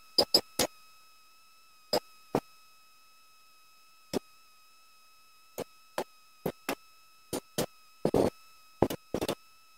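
Sharp metal knocks and clicks at irregular intervals, with a quick cluster near the end, as a mountain bike's suspension fork is worked loose and pulled out of a stuck headset. A faint steady high-pitched whine runs underneath.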